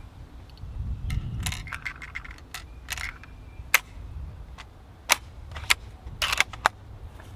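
Norwegian Krag-Jørgensen 1912 carbine being loaded and its action worked by hand: a short metallic rattle, then a series of sharp metal clicks from the cartridges, magazine and bolt.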